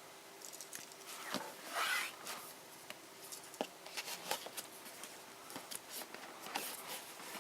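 Cardboard keyboard packaging being handled and opened: a scraping slide about two seconds in, then scattered small clicks, taps and rustles.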